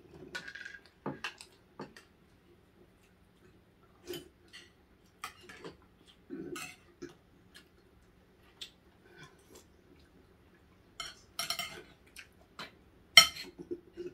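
Scattered clicks and clatters of cutlery against dishes during a meal, irregular and spaced out, with the sharpest clack near the end.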